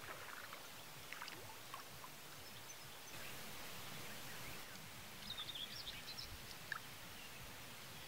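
Faint riverside ambience: a soft wash of water with a few short, high bird chirps clustered about five to six seconds in, and a single sharp tick a little after them.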